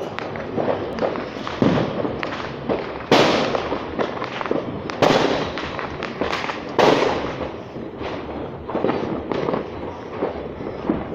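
Fireworks going off: a continuous crackle of many small bangs, with louder booms about three, five and seven seconds in.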